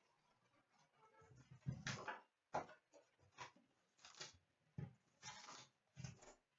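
Faint handling noises of a cardboard box of hockey cards being opened and its wrapped card packs lifted out: a scattering of short rustles and taps.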